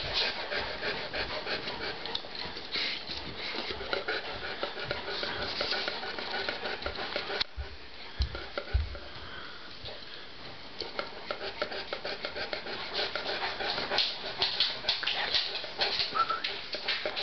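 Saint Bernard panting through an open mouth in a steady run of quick breaths. The panting eases off for a few seconds about halfway through, with a low thump in that lull, then picks up again.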